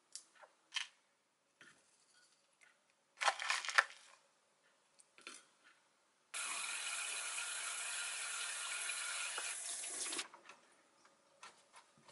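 Kitchen handling sounds while a yogurt bowl is put together in a glass cup: small clicks of a squeeze bottle and spoon, and a short loud rattle about three seconds in. Then comes a steady rushing noise for about four seconds that starts and cuts off abruptly, followed by light ticks and taps near the end.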